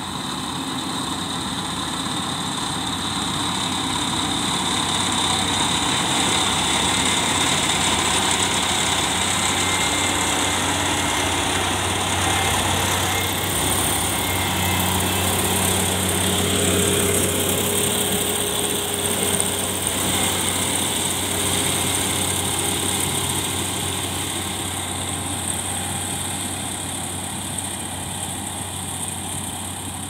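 Kubota combine harvester running as it cuts and threshes rice: a steady engine and machinery drone that grows louder as the machine comes close through the middle, then eases off as it moves away.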